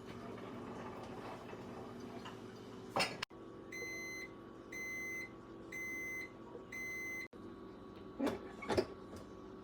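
An electronic appliance beeps four times, about a second apart, each beep a short steady high tone. A sharp click comes just before the beeps, and a couple of knocks follow near the end over a low steady hum.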